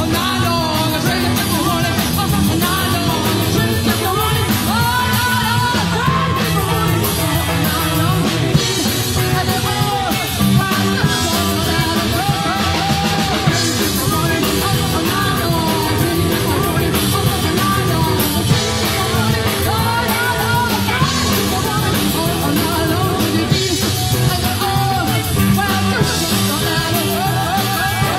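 Live rock and roll band: a woman singing lead over electric guitar and a drum kit, loud and driving.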